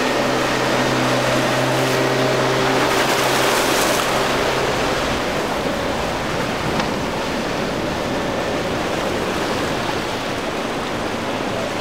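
Single Suzuki 140 hp outboard motor running at speed, a steady hum that fades out about halfway through as the boat pulls away, over a continuous rush of wake and surf.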